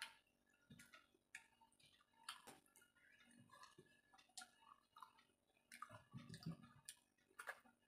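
Faint, scattered wet clicks and squelches of fingers mixing rice with curry on a brass plate.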